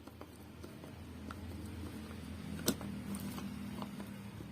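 Faint clicks of a tool on metal as the two 8 mm nuts on a motorcycle starter motor are tightened, one sharper click about two and a half seconds in, over a low steady hum.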